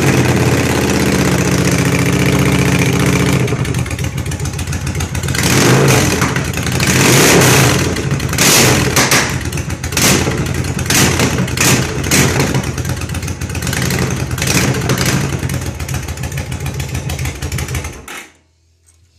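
2002 Yamaha V-Star 1100's air-cooled V-twin running open with its mufflers removed, first held steady, then blipped on the throttle again and again. The engine is shut off near the end and the sound stops suddenly.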